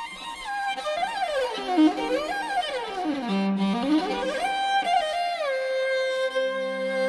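Background music: a bowed fiddle melody with long slides down and back up in pitch, settling about five and a half seconds in on long held notes over a low sustained tone.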